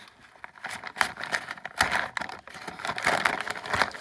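Stiff paper bag crinkling and crackling as it is worked open by hand, in irregular rustles and snaps. Quieter for the first second, busier from about a second in.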